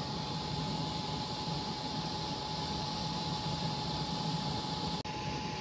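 Fan coil unit's belt-driven blower and electric motor running steadily: a constant rush of air with a steady whine. The unit is running again on its replaced drive belt and blowing cold.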